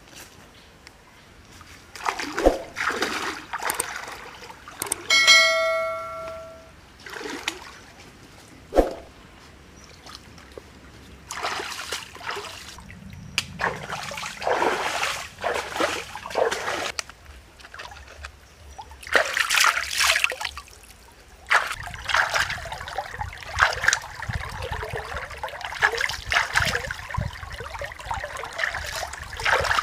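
Water splashing and trickling in a shallow stream as a woven bamboo basket is handled in it, in irregular bursts that grow busier over the last ten seconds. A short bell-like ring sounds once about five seconds in.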